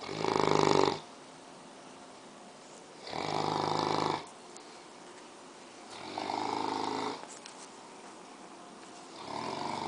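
English Mastiff snoring in its sleep: four rattling snores about three seconds apart, each lasting about a second, with the last one starting near the end.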